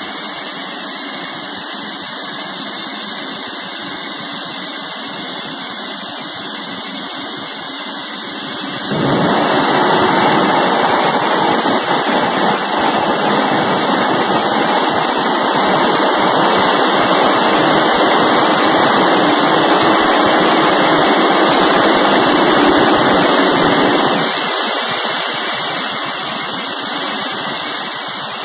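Small jet engine on a test rig running with a steady high whine. About nine seconds in the afterburner lights and a louder roar joins. It cuts out again about fifteen seconds later, leaving the engine running on its own.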